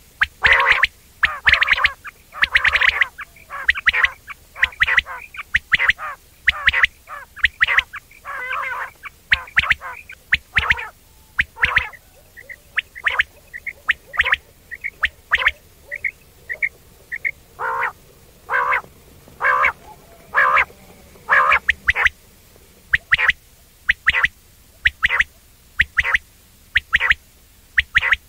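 A quail repeating its short, sharp 'wong wong' call over and over, in quick runs of notes with brief gaps between them; in the middle stretch the notes come thinner and higher-pitched.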